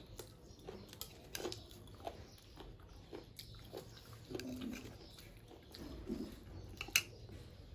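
Close-up eating sounds: chewing and mouth clicks while eating fish and rice, with scattered small clicks and one sharper click about seven seconds in.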